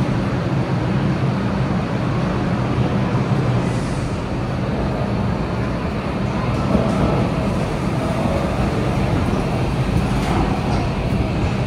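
Vintage R33/R36 New York subway cars running along the track: a steady, loud rumble of wheels and running gear with a low hum underneath.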